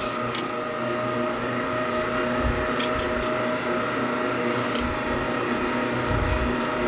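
Steady roar of a street-food stall's gas wok burner and extractor fan. A few sharp clinks of a metal spatula against the wok come as raw meat is tipped in and pushed around.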